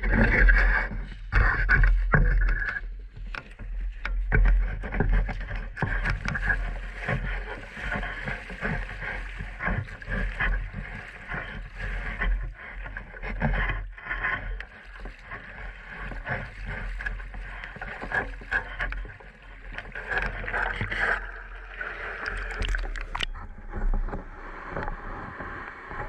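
Footsteps in waders crunching over shingle, then sloshing and splashing through shallow sea water as a wooden push net is carried and pushed along, with many irregular clicks and knocks over a steady low rumble. Near the end the sound turns duller.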